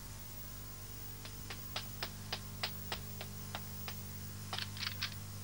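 Footsteps on hard paving, about three a second and getting louder, as someone hurries up to a door. Near the end comes a quick run of four light knocks on a wooden door.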